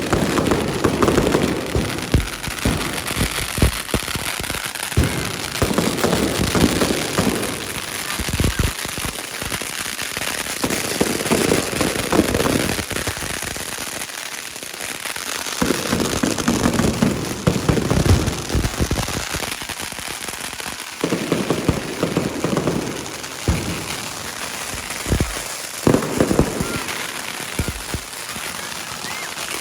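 Fireworks and firecrackers going off: dense, rapid crackling bangs that come in repeated bursts every few seconds.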